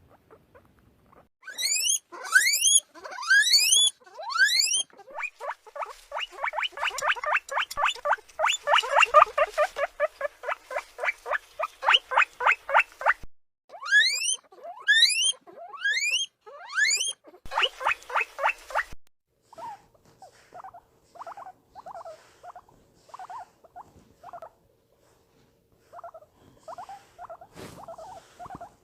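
Guinea pigs wheeking: loud rising whistles, then a rapid run of shorter squeaks at about five or six a second, more rising whistles and another quick run. About twenty seconds in, a quieter, lower run of short squeaks follows over a faint steady hum.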